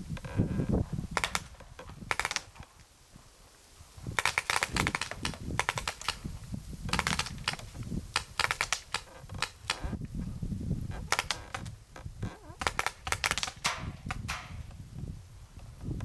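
Paintball markers firing in rapid strings of sharp pops, several bursts with short pauses between.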